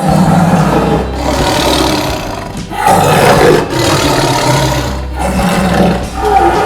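Tiger roaring loudly: a series of long, rough roars with brief breaks between them.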